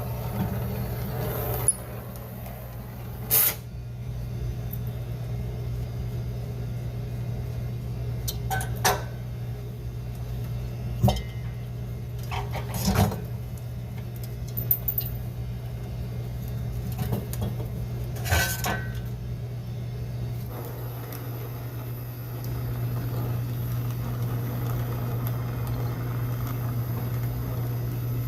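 Steady low mechanical hum, a little louder from about two-thirds of the way in, with about half a dozen separate metallic clanks and knocks of hand tools and parts being handled during compressor replacement work on an ice cream machine.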